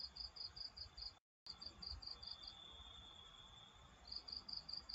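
Faint high-pitched chirping in an even rhythm of about six pulses a second, stopping about halfway through and starting again near the end, over a low background hiss.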